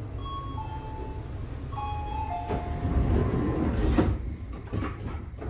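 Passenger doors of a Tobu 60000 series electric train closing: a short chime of a few tones stepping down in pitch, then the sliding doors running shut and meeting with a thump about four seconds in, followed by a few clicks as they lock.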